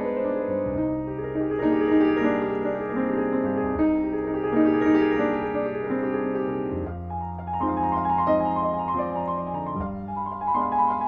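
Solo piano playing a slow, lyrical piece: long-held bass notes under chords and a melody in the middle register, with the bass moving to a new note about a second in and again near seven seconds.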